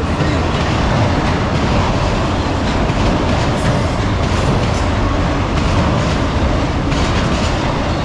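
Freight train of autorack cars rolling past close by: a steady rumble of steel wheels on the rails with occasional clacks over the rail joints.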